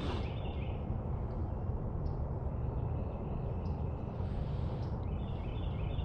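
Outdoor ambience: a steady low rumble with a bird calling twice, each call a quick run of short high chirps, once near the start and again near the end.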